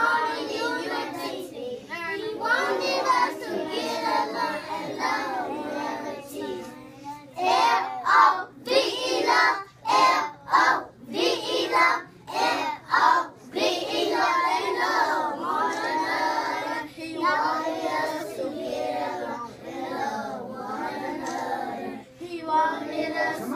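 A group of young children singing together. For several seconds in the middle the song breaks into short, loud, separate syllables before the steady singing resumes.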